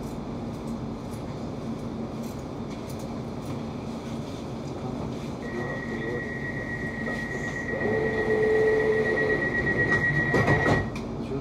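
Class 710 train's door warning: a high steady beeping tone for about five seconds over the hum of the train standing at the platform, ending with a knock as the doors shut. A lower tone briefly joins about eight seconds in.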